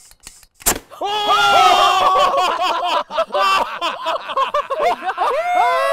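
A homemade solenoid-triggered pneumatic air cannon fires with one sharp bang about a second in. Several people then whoop and cheer loudly, their overlapping shouts lasting about five seconds.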